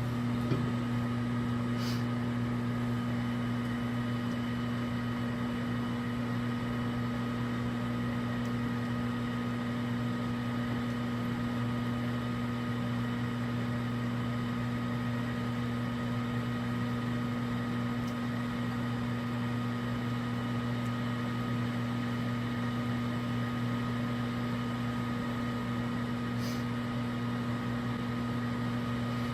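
Microwave oven running on high, heating a glass of water: a steady low electrical hum with a fainter high whir over it, unchanging throughout.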